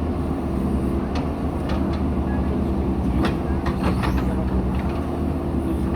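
JCB 3DX backhoe loader's diesel engine running steadily while working, with a few sharp knocks over it, several close together a little past three seconds in.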